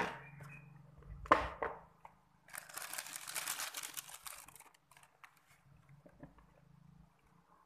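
A sharp knock about a second and a half in, then printed tissue paper crinkling and rustling for about two seconds as it is pulled out of a shoebox, followed by faint handling of a leather shoe.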